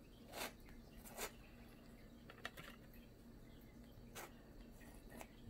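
Faint, brief scrapes of a metal palette knife dragging thick acrylic paint across a stretched canvas, four short strokes spread over a few seconds.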